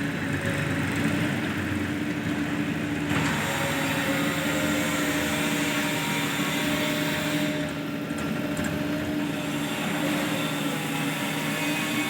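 Diesel engine running steadily under a light load, with an even hum and a hiss of mechanical noise over it.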